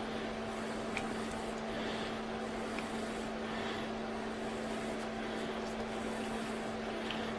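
Steady low electrical hum under a faint hiss, with a couple of faint small clicks about a second and about three seconds in, as small screws are handled.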